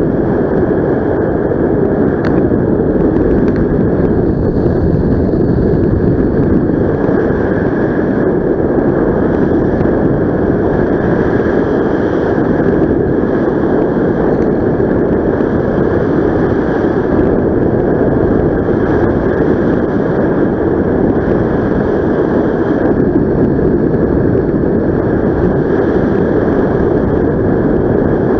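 Steady rush of wind buffeting a helmet camera's microphone as the paraglider flies, a loud unbroken noise with no pauses.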